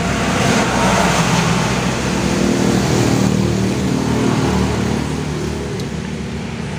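A motor vehicle's engine running steadily, with engine and road noise swelling over the first few seconds and then easing off.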